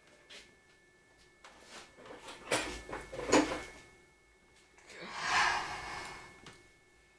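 Tools being handled in a workshop: a few light clicks and knocks, a denser metallic clatter about three seconds in, then a longer scraping rustle around five to six seconds in.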